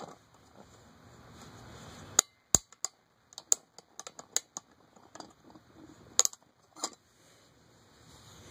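Scattered light metallic clicks and taps as the bolt is worked out of an aluminium mess kit's folding handle, with a few sharper clicks about two seconds in and about six seconds in.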